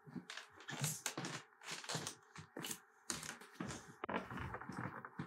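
Rustling and scuffing of a woven rug runner being lifted and laid back down over something hidden under it, with irregular knocks and shuffles of a person moving on a parquet floor.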